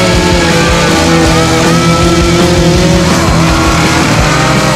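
Two-stroke chainsaw running and revving as it cuts into wood, its pitch rising and falling, heard over rock music with guitar.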